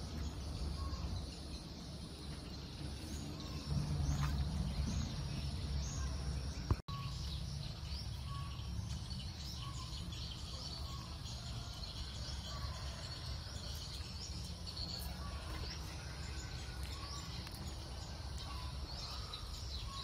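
Outdoor ambience of small birds chirping again and again over a steady low rumble, with a brief dropout about seven seconds in.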